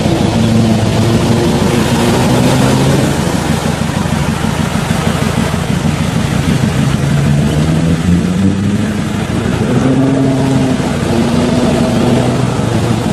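Off-road 4x4's engine revving, its pitch climbing and dropping several times as the throttle is worked.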